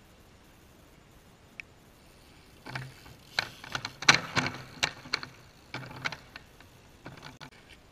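BMX bike riding onto a wooden plank balanced on a bollard as a seesaw: the tyres knock and rumble on the wood and the plank clatters as it tips and rocks back. The knocks come in uneven groups, the loudest about four seconds in.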